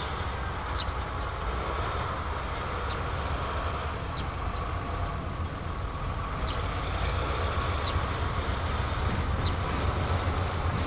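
DF5D diesel-electric locomotive approaching with a freight train, its diesel engine a low steady drone that grows louder as it draws near.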